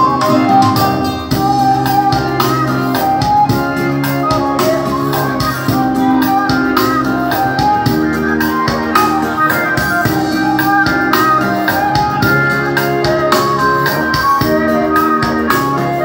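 Electronic arranger keyboard playing a song's instrumental introduction in an organ-like voice: held chords under a winding melody, over a steady programmed beat.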